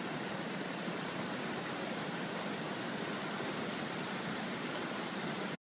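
Whitewater rapids rushing steadily, an even wash of water noise that cuts off suddenly near the end.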